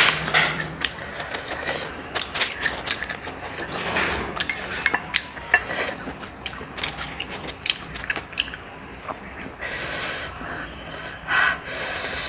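Close-miked eating sounds: many small clicks and taps of snail shells and a toothpick as the meat of grilled apple snails is picked out, with chewing and a couple of short hissy slurps near the end.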